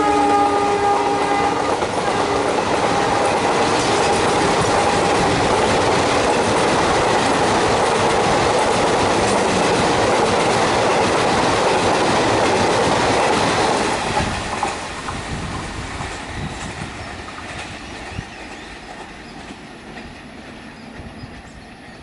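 WDM3A ALCO diesel locomotive's horn ending about a second in, its pitch dropping as the locomotive passes. Then the train of passenger coaches runs past at speed with wheels clattering over the rail joints. The noise drops off sharply about two-thirds of the way through and fades as the train recedes.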